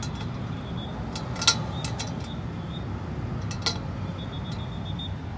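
A locked glass door being tried: a few sharp clicks and clunks from its latch and metal frame, the loudest about a second and a half in, over a steady low rumble.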